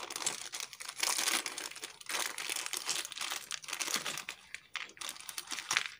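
Clear plastic zip-lock bag being opened and handled, crinkling irregularly.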